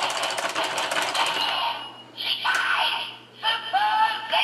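Electronic sound effects from the DX Geartlinger toy morpher's built-in speaker: a fast rattling, clicking effect for about two seconds, then short bits of a recorded voice with pitch glides.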